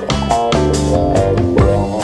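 Background music with drums and a steady beat, over bass and pitched instrumental notes.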